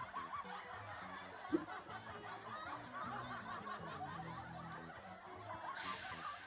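A woman snickering and laughing softly over quiet background guitar music, with one brief sharp knock about one and a half seconds in.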